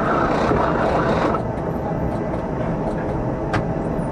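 Tram running along the street, heard from the driver's cab: a steady rumble of wheels on rails and running gear, louder and brighter for the first second and a half, with a single sharp click about three and a half seconds in.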